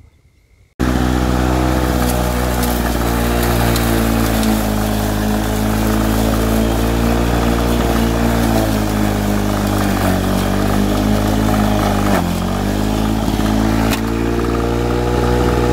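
Victa Commodore 160cc two-stroke lawnmower engine running at mowing speed while cutting long grass. It starts abruptly about a second in, runs steadily, and dips briefly in pitch before recovering about twelve seconds in.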